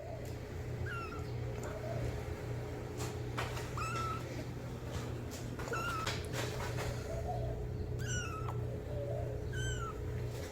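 Kitten meowing for its mother: about five short, high-pitched meows spaced roughly two seconds apart, over a steady low hum.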